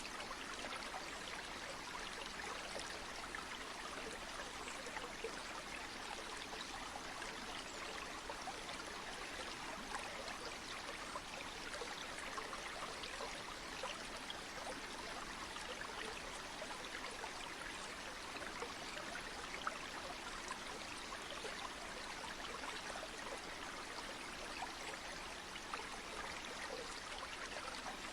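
River water flowing steadily: an even, unbroken rush of running water.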